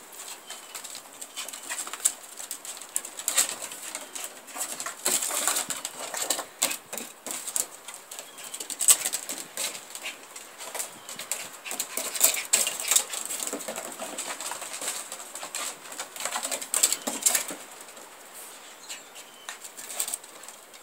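Havanese puppies playing on wooden deck boards: an irregular patter of small paws scrabbling and clicking on the wood, with rustling scuffles as they tussle with a plush toy.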